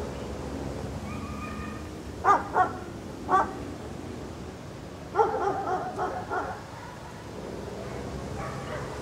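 A dog barking excitedly: three short barks between about two and three and a half seconds in, then a quick run of yips and whines a little after five seconds.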